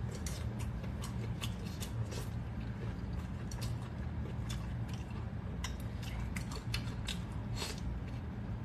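Close-miked eating: chewing and biting with many sharp, irregular wet clicks and crackles, over a steady low hum.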